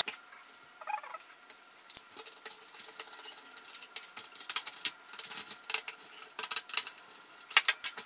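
Light, irregular clicks and small scratches of a screwdriver being handled, plastic and metal tapping together, with a quick cluster of clicks near the end.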